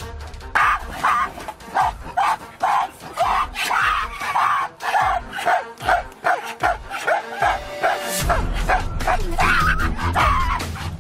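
A rapid run of short barking calls, about three a second, over music; a deep, steady musical bed comes in about eight seconds in.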